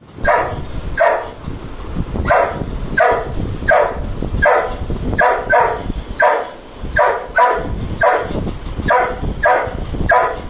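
Doberman barking repeatedly at a steady pace, about three barks every two seconds, with an occasional quick double bark.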